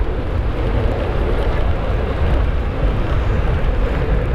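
Motorcycle riding along at a steady speed: a loud, even rush of engine and wind noise with a heavy low rumble.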